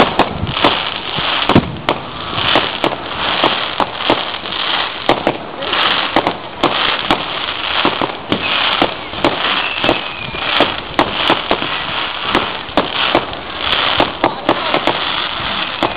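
Fireworks display: an irregular, rapid string of sharp bangs, several a second, from launching and bursting fireworks over a continuous hiss.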